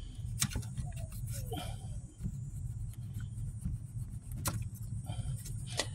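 A blade cutting and scraping at the last piece of old heater hose on a plastic T fitting, with a few sharp clicks. A steady low rumble runs underneath.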